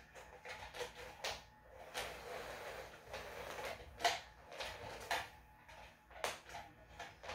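Battery-powered electronic cat toys running with a faint steady hum, with irregular clicks and knocks as kittens bat at the moving wand and the plastic housing on a hard floor.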